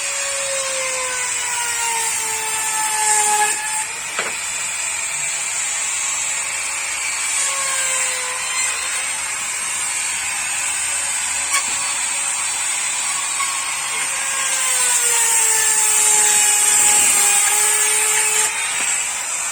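Electric power tool running continuously on wood, its motor pitch sagging and recovering several times as it is loaded and unloaded, over a steady high hiss.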